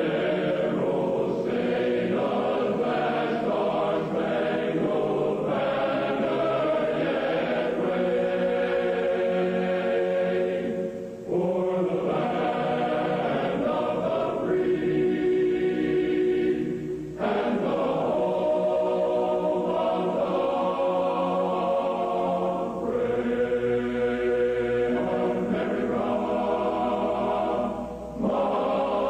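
Choral music: voices singing long held chords in phrases, with a brief break between phrases every five or six seconds.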